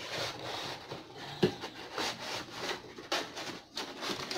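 Cardboard packaging rubbing and scraping as it is handled and pulled apart, with a sharp knock about one and a half seconds in.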